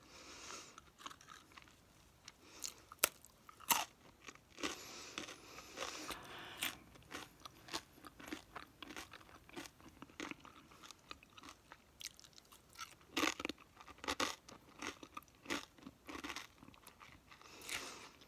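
Close-miked chewing and crunching of food, an irregular run of crisp crunches and wet mouth sounds. The sharpest crunches come about three and four seconds in and again about thirteen seconds in.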